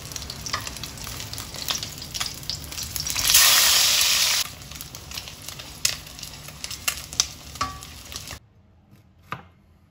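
Oil sizzling and crackling as a Spanish mackerel (batang) fish steak shallow-fries in a stainless steel wok. The sizzle swells loudly for about a second around three seconds in. It cuts off suddenly near the end, leaving near quiet with one click.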